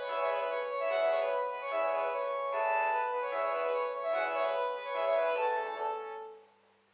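Panasonic KX-TGH710 cordless phone playing one of its polyphonic melody ringtones, an organ-like tune of many short notes. The last note fades out about six seconds in.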